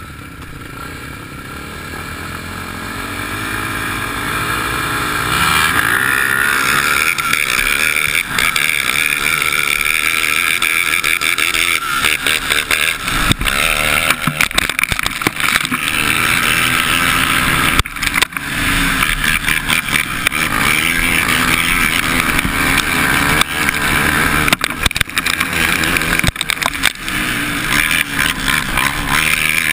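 Racing quad engines at a motocross start. The sound swells over the first few seconds, then one quad runs hard at high revs, with the revs rising and falling, heard close up from an onboard camera. Frequent brief knocks and dropouts come through as the quad runs over the rough track.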